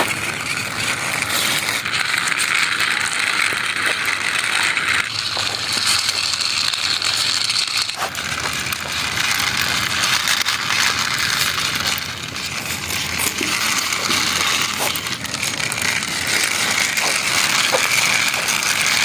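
Small plastic toy dump truck rolling along, its wheels and gearing making a steady whir with scattered small clicks and rattles.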